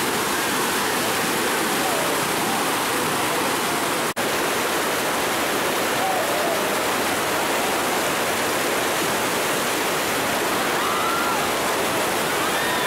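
White-water river rapids rushing steadily around an inflatable raft, with a split-second break in the sound about four seconds in.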